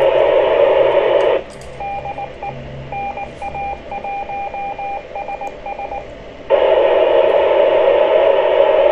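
Amateur radio receiver on the ISS FM repeater downlink, giving loud static hiss. About a second and a half in, the hiss cuts out as a signal comes on, and a single-pitch tone beeps on and off in short and long elements like Morse code for about five seconds. Then the hiss returns abruptly.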